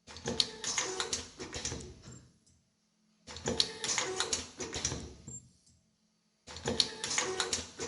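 Automatic nylon zipper film welding machine running its cycle: about two seconds of rapid mechanical clicking and clattering, repeating three times, roughly every three seconds, with short quiet pauses between.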